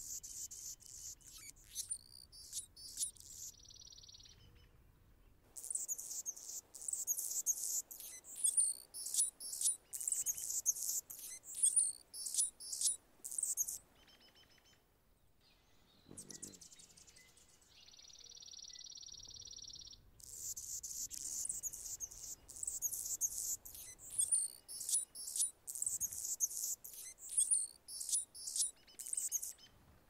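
A male Anna's hummingbird singing: long bouts of rapid, high-pitched scratchy notes, broken by pauses, with a held buzzing note twice.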